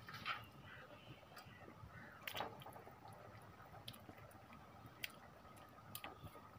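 Faint, scattered ticks and soft wet squelches from a hand dipping into a pot of chicken gravy.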